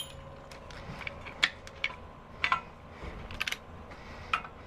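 Scattered light metallic clicks and clinks, several short sharp ones about a second apart, from hand tools and hardware being handled on a metal work surface.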